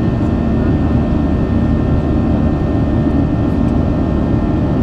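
Boeing 737-800's CFM56-7B turbofan engine at climb power, heard from inside the cabin near the wing: a loud, steady drone with a low hum.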